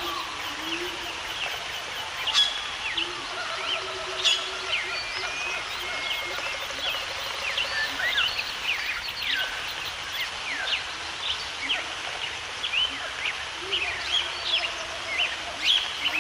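A chorus of many birds chirping and calling over a steady background hiss, with two sharp clicks about two and four seconds in.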